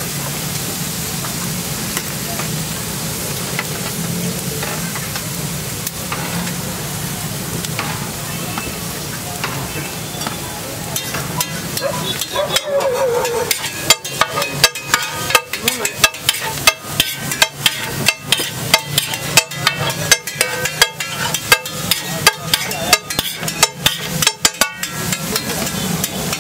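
Food sizzling on a large flat street-food griddle over a steady low hum. About halfway in, a spatula starts striking and scraping the griddle at a quick, uneven pace, about two or three hits a second and the loudest sounds, as rice and scrambled egg are chopped and mixed.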